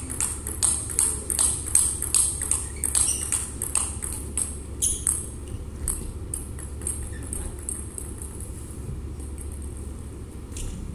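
Celluloid-type table tennis balls clicking off bats and table tops in quick rallies, about two to three hits a second, thinning out after the first five seconds. A steady low hum runs underneath.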